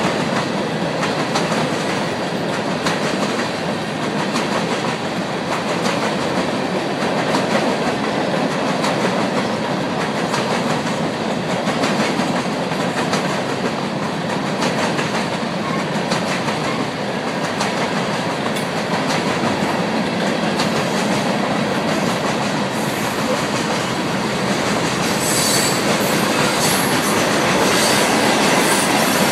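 Freight cars of a CSX mixed freight train passing at speed, a steady noise of steel wheels on the rails. High wheel squeal joins in about four seconds before the end.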